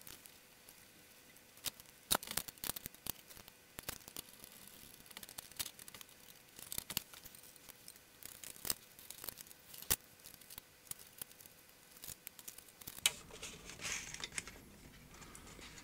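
Scattered light clicks, taps and scrapes of a thin sheet-metal screening can being worked into place in a mini hi-fi's chassis, then of the metal top cover being handled.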